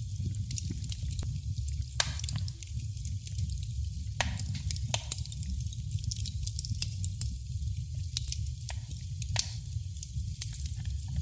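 Wood fire in a fireplace crackling: irregular sharp snaps and pops over a steady low rumble of the flames, with a few louder pops.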